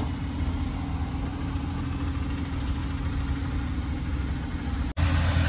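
Steady low hum of an idling engine, heard from inside a car's cabin. It cuts out for an instant near the end and comes back a little louder.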